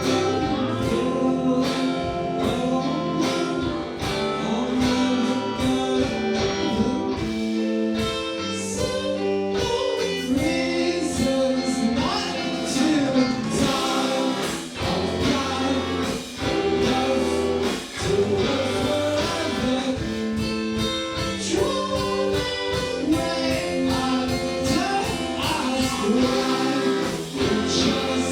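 Live indie rock band performing a song: singing over guitar, with a steady beat.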